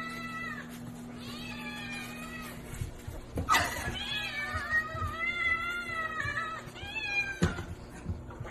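Domestic cats, a kitten among them, meowing in a series of long, drawn-out cries that rise and fall in pitch. A sharp noise comes about three and a half seconds in, and another near the end.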